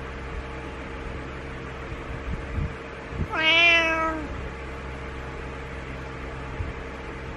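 Orange-and-white domestic cat giving a single meow lasting about a second, about halfway through: a demanding meow to get its owner out of bed in the morning. A steady low hum runs underneath.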